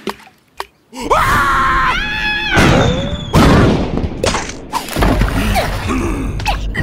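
Cartoon soundtrack of wordless character cries and yells with gliding pitch, mixed with sound effects. Two short clicks come near the start, and a low rumble comes in about five seconds in.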